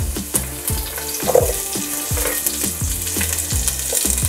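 Chunks of red onion sizzling steadily as they fry in hot oil in a cooking pot, with background music playing under it.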